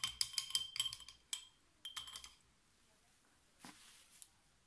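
Quick run of light, ringing clinks, about nine a second, as a painting tool knocks against a glass container, then a shorter run about two seconds in and a faint rustle near the end.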